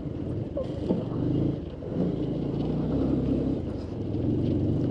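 A 220 cc motorcycle's engine running steadily while the bike is ridden over a loose dirt and gravel track strewn with dry leaves, with faint scattered crackles from the loose surface.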